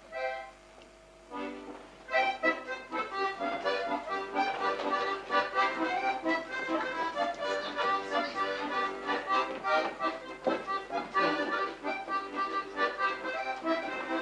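Accordion music: after a short lull, a chord sounds about a second and a half in, then the accordion plays a tune in quick, closely repeated chords and notes.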